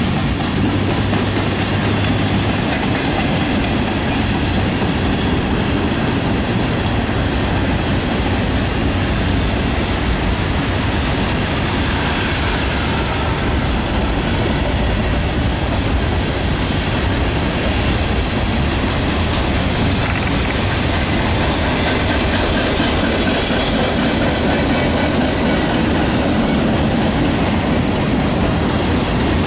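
Norfolk Southern mixed freight train's cars rolling past close by at speed: a steady, loud rumble and clatter of steel wheels on the rails.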